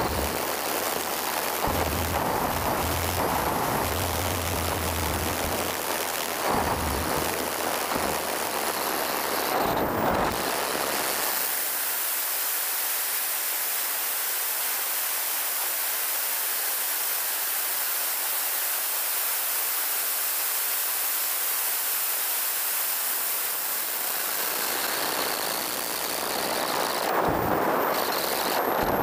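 Steady rush of wind over an onboard camera riding on a large RC Vickers VC10 model in flight, mixed with the noise of its four Wren Super Sport micro gas turbines. A faint high whine dips and rises in pitch in the first ten seconds and returns near the end. The low rumble drops away for about twelve seconds in the middle.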